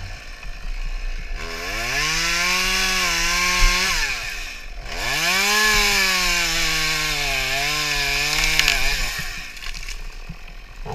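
Stihl MS 192 T top-handle two-stroke chainsaw revved up and cutting through a tree limb in two runs: from about a second and a half in to about four seconds, a brief let-off, then again until near the end. Its pitch sags as the chain bites into the wood, and it drops back once the cut is through.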